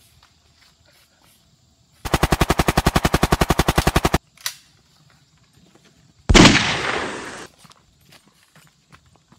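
A machine-gun sound effect: a two-second burst of rapid, evenly spaced shots, about fourteen a second, that cuts off suddenly. About two seconds later comes a single loud blast that dies away over about a second.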